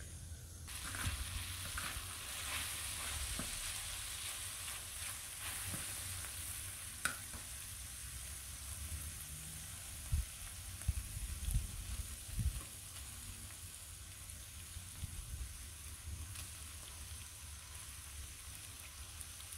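Sheep liver frying in oil in a wide round steel pan, a steady sizzle that starts suddenly about a second in and slowly eases, as raw meatballs are set into the pan one by one. A few dull low bumps come about halfway through.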